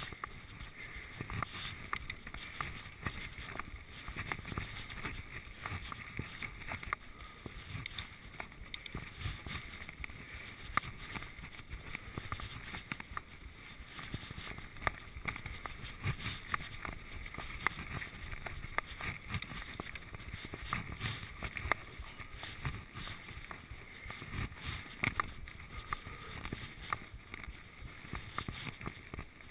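Giant Trance 1 full-suspension mountain bike riding down a dirt and grass forest trail: a steady rumble of the tyres rolling over the ground, broken by frequent sharp clicks and rattles from the bike as it takes bumps, with some wind noise.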